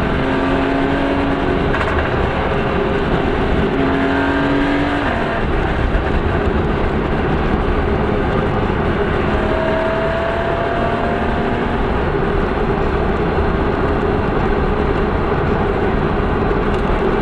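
Car on the move: steady wind and road noise with an engine running underneath, its pitch drifting slowly upward a couple of times.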